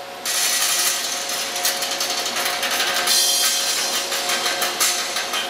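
Music reproduced by a plasma speaker: the high-voltage arc from a TV flyback transformer, frequency-modulated with the audio, plays a song with a strong hiss over it.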